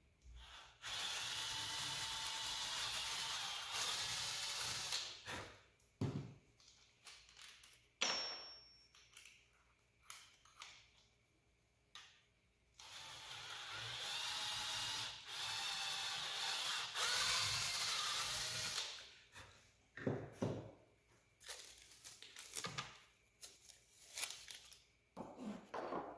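Cordless drill with a quarter-inch bit boring a hole through a rifle stock, in two long steady runs a few seconds apart. It is followed by a series of short clicks and knocks near the end.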